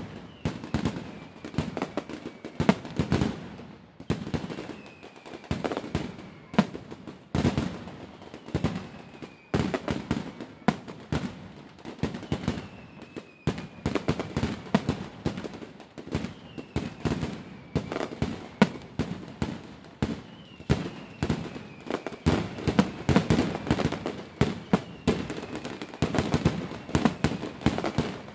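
Aerial fireworks display: shells bursting in a dense, unbroken run of sharp bangs and crackling, with louder booms every second or so.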